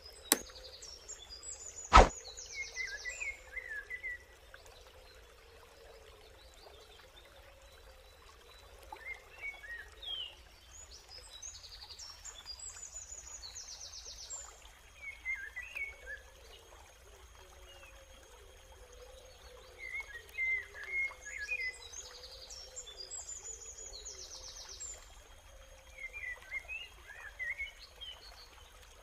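Birds calling: clusters of short chirps every five or six seconds, with a higher, rapid trilling call about every ten seconds, over faint steady background noise. A single sharp click about two seconds in.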